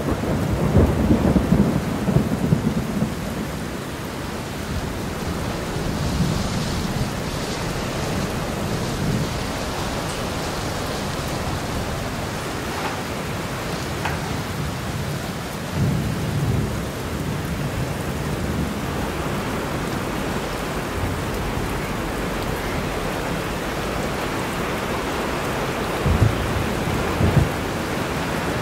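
Heavy rain falling steadily, with low rumbles of thunder in the first few seconds, again about halfway through and twice more near the end.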